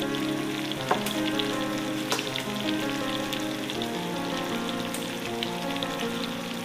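Chicken pieces frying in hot oil: a steady sizzle and crackle, with a sharp pop about a second in and another about two seconds in, under background music.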